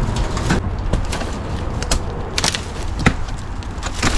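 Several sharp knocks and cracks at irregular intervals over a steady low rumble.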